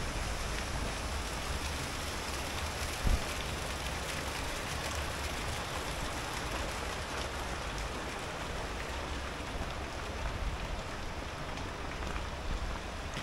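Steady rushing of river water flowing through the channel below, with a single dull bump about three seconds in.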